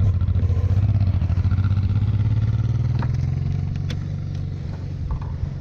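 Dual-sport motorcycle engine idling with an even, rapid pulse, with a few faint clicks over it.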